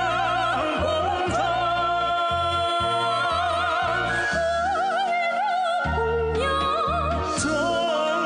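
Music from a song: a melody in long, wavering notes with wide vibrato over a bass line that steps from note to note.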